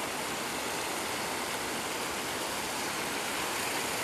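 Steady rush of running stream water.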